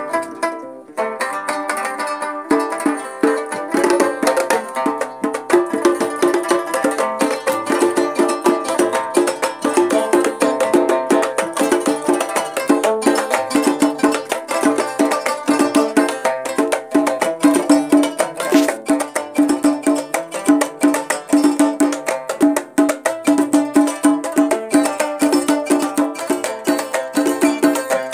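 Amazigh loutar (skin-topped lute) music, plucked in a fast, repeating rhythmic figure with a sharp, twangy attack. A low repeated note joins about two seconds in.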